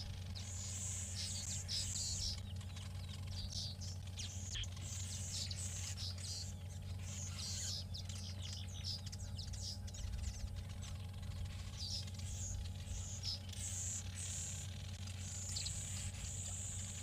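Colony of southern masked weavers chattering: a continuous stream of rapid high chirps and twitters from many birds, over a low steady hum.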